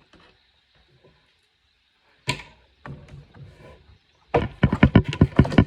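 A part being worked off an accordion: a sharp click, some faint scraping, then a quick run of loud knocks and rattles near the end as the piece comes loose.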